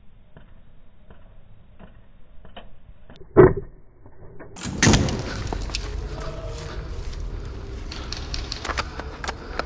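Faint scattered clicks and one loud thump about three and a half seconds in. From about halfway, a louder steady rustle with many clicks and knocks takes over.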